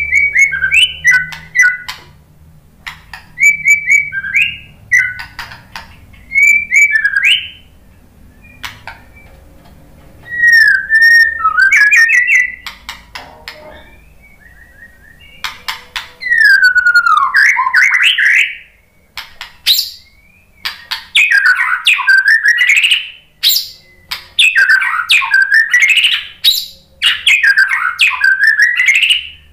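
White-rumped shama singing loudly in bursts: short whistled phrases with pauses in the first half, then longer phrases of fast sweeping notes, with sharp clicks between phrases.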